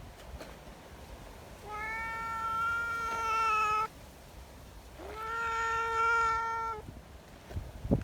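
A cat meowing twice: two long, drawn-out meows, each about two seconds, about a second apart.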